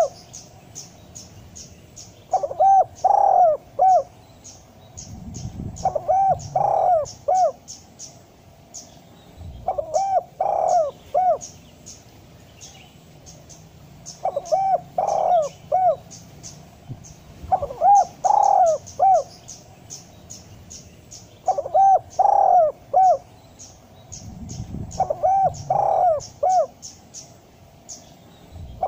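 Spotted dove cooing in repeated phrases of several notes, one phrase about every four seconds, a lure call used to get other doves calling. Fast, high, ticking chirps run on between the phrases.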